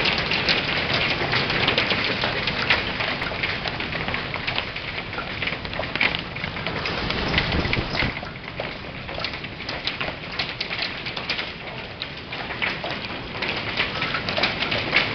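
Heavy hailstorm heard from inside a glass-fronted building: a dense, constant clatter of hailstones striking the building, made of countless sharp ticks over a hiss.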